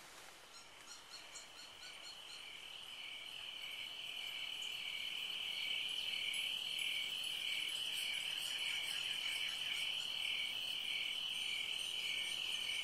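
Insects buzzing in a steady high drone with a regular pulsing beneath it, growing louder over the first several seconds.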